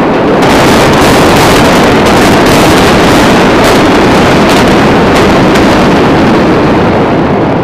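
Loud, continuous noise of a building collapsing in a demolition, with a few sharp cracks.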